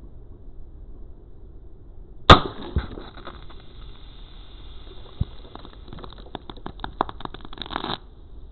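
A single sharp shot strikes a drink can, followed half a second later by a smaller knock. The punctured can then hisses as it sprays out its foaming contents, with crackling and spattering that grow denser until the sound cuts off suddenly near the end.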